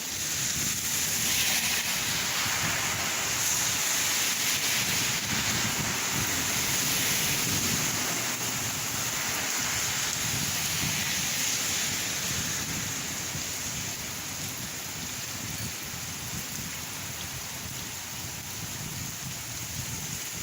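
Steady heavy rain falling and splashing on surfaces, a constant hiss that swells about a second in and eases off somewhat after the middle.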